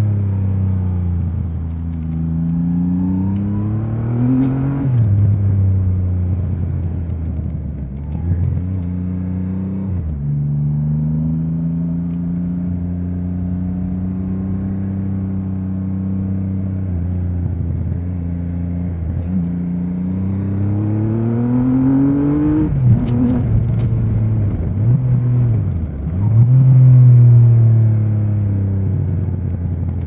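Triumph Rocket 3 R's 2.5-litre three-cylinder engine under a rider's throttle, revs climbing, dropping at gear changes and climbing again through a run of bends. It holds a steady pitch through a long middle stretch, then winds up again twice towards the end.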